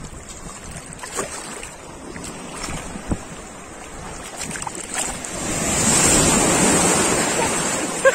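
Choppy Black Sea waves washing and splashing around a swimmer at the water's surface. A wave builds and breaks, loudest about six to seven seconds in, then ebbs. Wind rumbles on the microphone.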